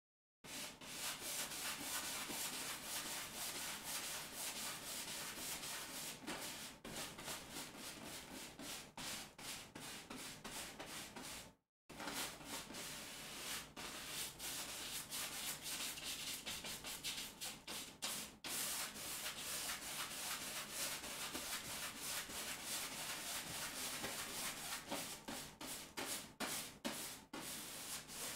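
Wide bristle paintbrush scrubbing paint onto a stretched canvas: a dry, rough rubbing in quick back-and-forth strokes, with a brief break about twelve seconds in.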